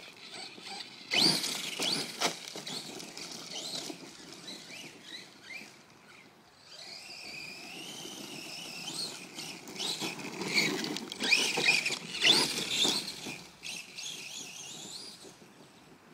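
Redcat Earthquake 8E electric RC monster truck driving, its motor whining and sliding up and down in pitch with the throttle. Several sharp knocks come about a second in and again around eleven to thirteen seconds in, the loudest near twelve seconds.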